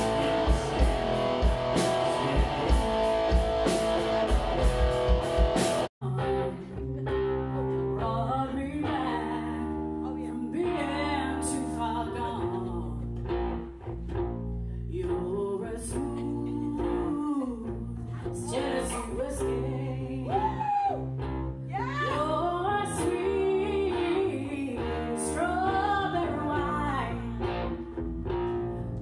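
Rock music: electric guitar with sharp, steady beats for about six seconds, then a sudden cut to a different song with a voice singing over guitar and bass.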